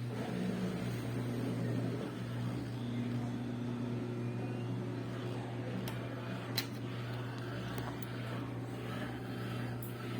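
Whirlpool washing machine running with a steady low hum, and a single sharp click about six and a half seconds in.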